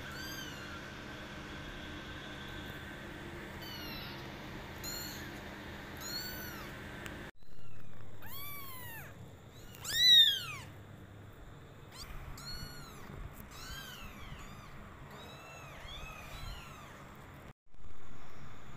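Kittens about two and a half weeks old meowing: a string of short, high-pitched mews, each rising and falling in pitch, with the loudest about ten seconds in.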